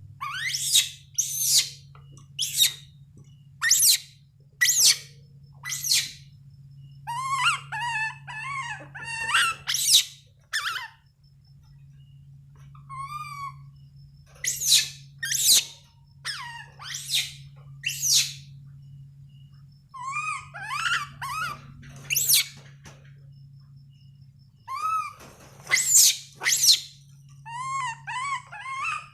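Monkey calls: a long run of sharp, high, whistle-like cries that sweep steeply upward, broken by several bouts of quick warbling notes, over a steady low hum.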